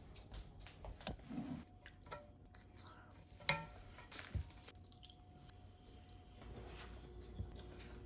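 Quiet kitchen handling sounds: scattered soft taps and clicks, with one sharp ringing clink about three and a half seconds in and a dull thud a second later.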